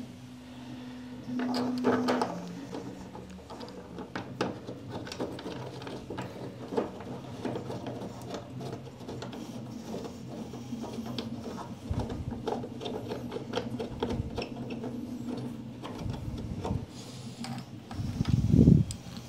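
Hands removing and fitting 3D-printed plastic panel braces and threaded plastic bolts: a string of small clicks, taps and rattles, with a louder scrape about two seconds in and a heavier knock near the end.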